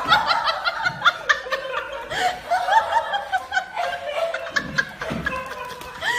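A person laughing hard in rapid, high-pitched bursts, dying down after about four seconds, with scattered clicks among the laughs.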